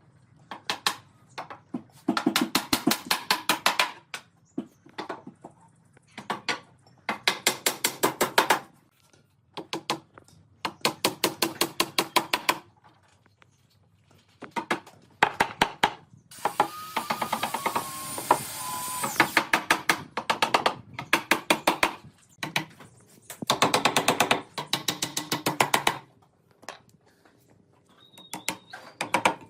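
Wood being worked with hand tools: repeated runs of rapid, even strikes on wood, each run lasting a second or two with short pauses between. About two-thirds of the way in there is a stretch of steadier scraping noise with a faint whine.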